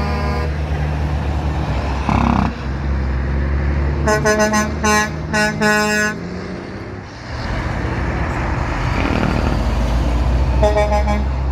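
Truck horns honking in a run of short blasts about four seconds in, with another quick run of honks near the end, over the steady low rumble of passing heavy trucks.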